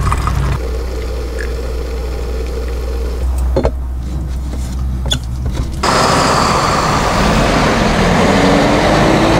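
City street traffic, loud from about six seconds in, with a truck's engine rising in pitch as it pulls away. Before that, a low steady hum with two sharp clicks.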